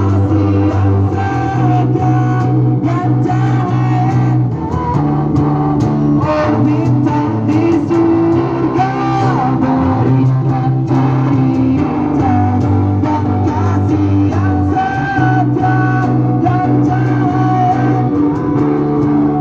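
Pop-rock song played loud, with guitars, a bass line holding long notes that change every couple of seconds, and a melodic line that fits a singing voice.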